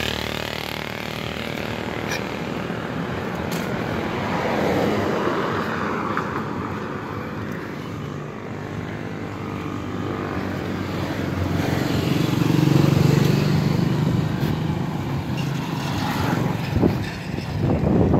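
Wind buffeting the microphone over steady road noise, with a motor vehicle's engine swelling and fading about two-thirds of the way in.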